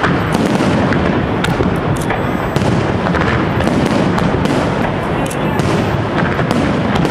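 Aerial fireworks display: a dense, continuous barrage of shell bursts and launches, with many sharp cracks over a steady rumble.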